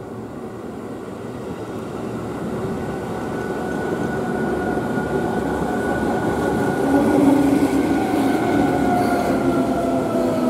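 Seibu 2000 series electric multiple-unit train approaching and passing close by, its running noise growing steadily louder. A whine runs through it and slowly drops in pitch toward the end.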